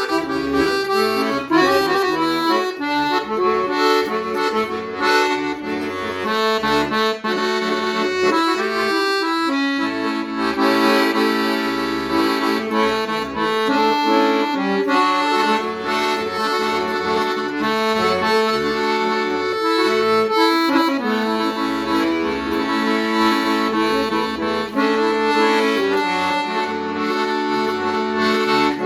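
Accordion playing a melody over held chords, the notes changing throughout with a steady reedy sound.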